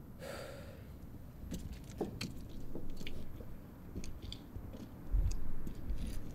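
A wooden door being handled and swung shut: scattered light clicks and knocks over a low rumble, with a heavier low thump about five seconds in.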